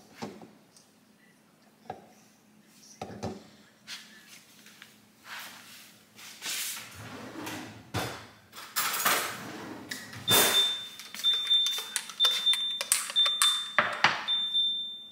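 Mug and spoon handling on a kitchen counter: a few knocks and clinks, then rustling and swishing. From about ten seconds in, a high electronic beep repeats about once a second.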